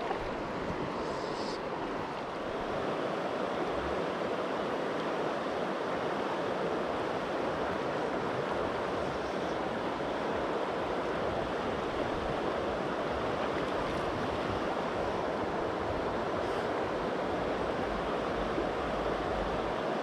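Steady rushing of a trout stream running high, full of water.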